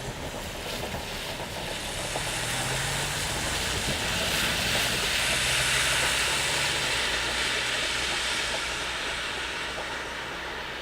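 113-series electric train passing. Its running noise swells to a peak about halfway through, then fades.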